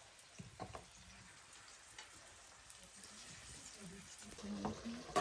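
Food frying in a pan over a fire, giving a low, steady sizzle.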